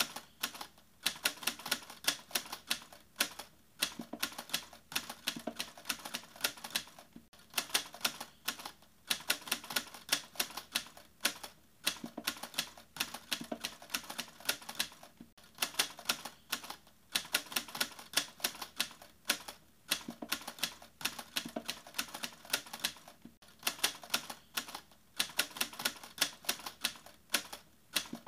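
Rapid key clicking like a typewriter, in fast runs broken by short pauses every few seconds.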